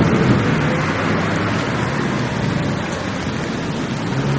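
Steady rushing and rumbling noise of a metro train running, heard from inside the carriage.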